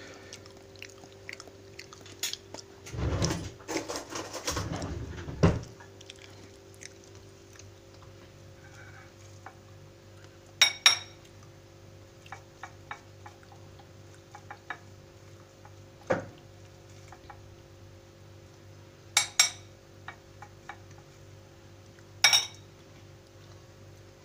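Metal spoon scraping and clinking against a ceramic bowl as a baked potato's flesh is scooped and mashed for kumpir, with a stretch of scraping early on and four sharp ringing clinks spread through, over a steady low hum.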